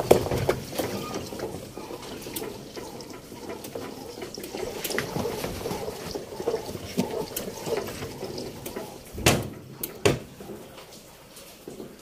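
Water draining out of an old Sharp top-load washing machine, running and splashing unevenly, with two loud knocks near the end.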